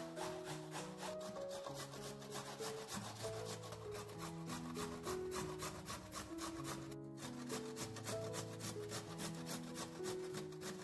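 Fresh turmeric root being grated on a stainless-steel box grater: quick, even rasping strokes, about three or four a second, with a brief pause about seven seconds in. Soft background music with a slow melody plays underneath.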